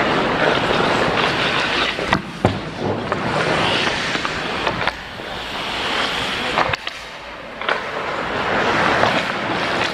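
Ice hockey play heard close up: skate blades scraping and carving the ice in a steady noisy rush, with a handful of sharp clacks of sticks and puck scattered through it.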